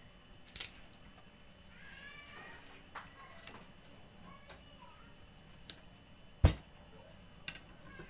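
Scattered taps and knocks on a wooden chopping board as garlic cloves and an onion are handled and a knife is picked up, with one heavier thump a little past halfway. A brief high-pitched call sounds about two seconds in.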